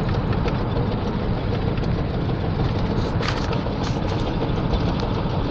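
Carburetted ZMZ-406 four-cylinder petrol engine of a GAZelle van running steadily with a droning hum and faint ticks, one more distinct about three seconds in. The owner takes the hum to mean the engine is badly worn or failing.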